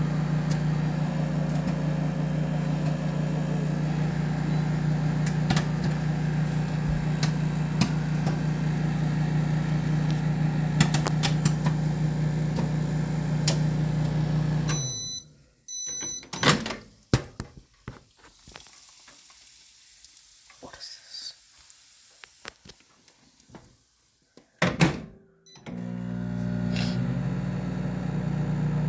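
Microwave oven running with a steady low hum while popcorn pops inside in scattered sharp pops. About halfway the hum cuts off with two short beeps, a few pops go on in the quiet, there is a loud knock, and the hum starts up again shortly before the end.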